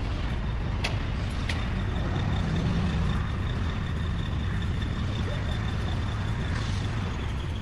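Steady running noise of heavy machinery with a faint, steady high whine, and two sharp metallic clicks about a second in.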